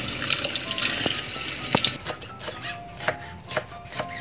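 Tap water running over spring onions rinsed by hand in a stainless steel sink, stopping about two seconds in. Then a chef's knife chopping the spring onions on a wooden cutting board, steady strokes about two a second.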